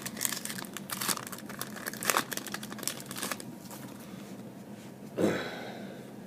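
Trading-card pack wrapper crinkling and tearing as it is opened, a dense crackle for about three and a half seconds. A single short, louder rustle comes about five seconds in.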